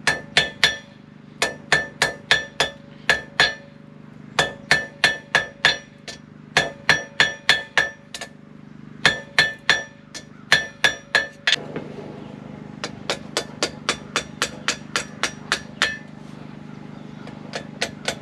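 Blacksmith's hammer striking a hot railroad spike on a Hay Budden anvil, tapping to close up a rolled finial. The strikes come about three a second in short runs with pauses, each one ringing clearly. From about two-thirds of the way in the blows turn duller, without the ring, then thin out to a few light taps. A steady low hum sits underneath.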